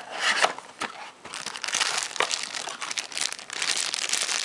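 Clear plastic packaging bag crinkling and rustling as it is handled, growing louder and more continuous from about a second in.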